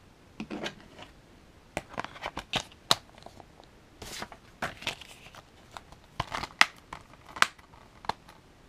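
Plastic Blu-ray case and disc being handled: the disc is pressed onto the case's hub and the case is snapped shut, giving a run of sharp plastic clicks and snaps with short rustles between them, the loudest clicks a little past halfway.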